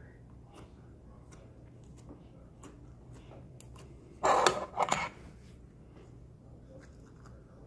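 Faint scattered clicks and pops of thick slime being pressed by hand, then about four seconds in a louder scrape and clatter, in two parts lasting about a second, as a stainless-steel apple slicer is picked up off the countertop.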